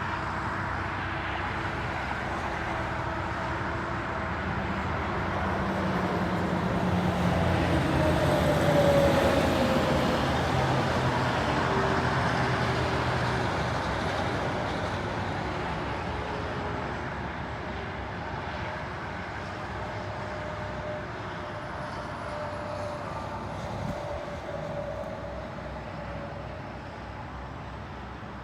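Vehicle engine and road noise that grows louder to a peak about nine seconds in, then slowly fades.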